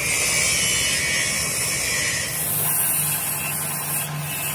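Gravity-feed air spray gun hissing steadily as it sprays paint, the hiss turning thinner and higher about halfway through, over a steady low engine hum.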